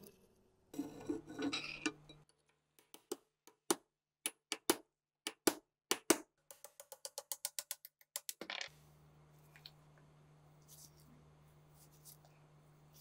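Metal rattling and scraping, then a string of separate sharp clicks and taps, then a quick even run of about six clicks a second, as a screwdriver is worked into the rusted steel receiver of an RPG-7. A low steady hum starts about nine seconds in.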